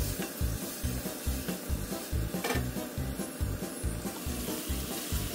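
Chopped tomatoes sizzling in a wok as a spatula stirs and scrapes them, over background music with a steady low beat.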